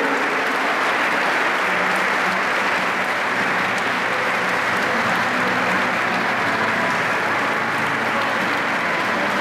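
A large crowd applauding steadily, many people clapping at once without letting up.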